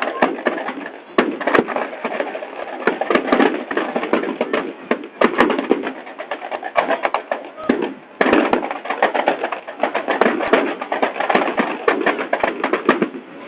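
Large bonfire burning with constant dense crackling and popping, under the mixed voices of a crowd.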